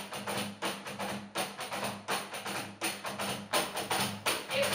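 Batuque rhythm beaten by hand on a tchabeta, the rolled-cloth pad of Cape Verdean batuque: a fast, even run of sharp slaps, about four or five a second, over a steady low hum. A singing voice comes in near the end.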